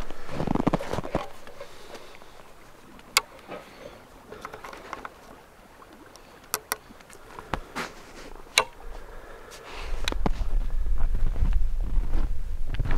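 Sharp metallic clicks from priming a .50 cal flintlock Kentucky rifle: a spring-loaded pan primer pressed against the lock's pan, several single clicks a second or so apart. About ten seconds in, wind buffeting the microphone takes over as a steady low rumble.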